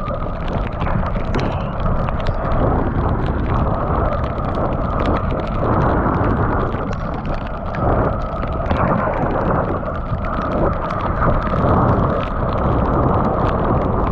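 Mountain bike riding fast down a rough trail: tyres on wet dirt, the bike's chain and frame rattling with many small knocks over a constant loud rumble.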